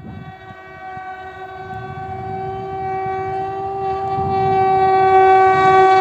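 Sampoorna Kranti Express locomotive horn sounding one long continuous blast over the rumble of the train, growing steadily louder.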